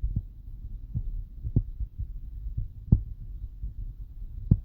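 Wind buffeting the microphone: a steady low rumble broken by about half a dozen short, irregular thumps.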